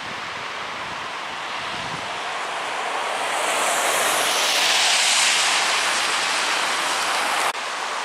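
Road traffic noise: a steady hiss of tyres on a wet, slushy road, swelling as a vehicle passes about halfway through, then cutting off suddenly near the end.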